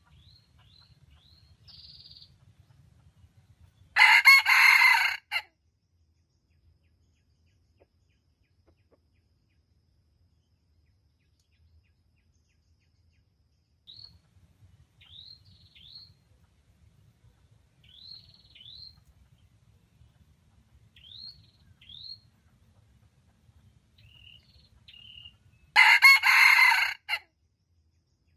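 Red junglefowl rooster crowing twice, each a short, loud crow of about a second and a half: one about four seconds in, one near the end. Between the crows a small bird gives runs of short, high, downward chirps.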